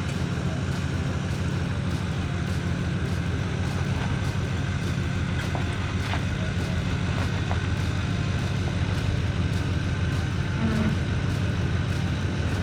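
A vehicle engine running steadily, low-pitched, with faint ticks at a regular pace.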